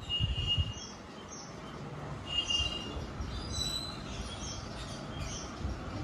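Alexandrine parakeet giving soft, short chirps and squeaks, with two brief whistled notes, one right at the start and one a little past two seconds in.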